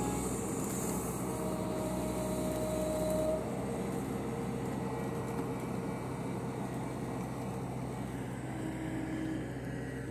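Skid steer engine running steadily under work, with a higher whine for about two seconds starting a second in and a fainter one near the end.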